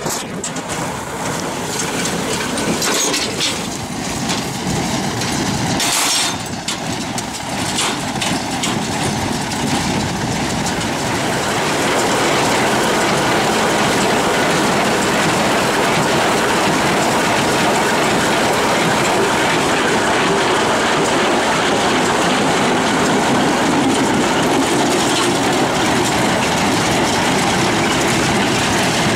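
Heavy farm machinery running with a steady mechanical clatter, getting louder and steadier about twelve seconds in.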